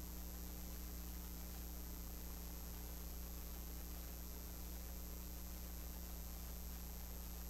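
Steady electrical mains hum over a constant hiss, with a thin high whine above it. Nothing else stands out.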